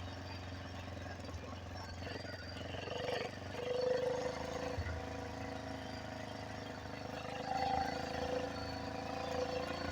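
49cc four-stroke engine on a homebuilt motorized bicycle running steadily during a ride. Its idle is set a little high, enough to keep the bike rolling off the throttle.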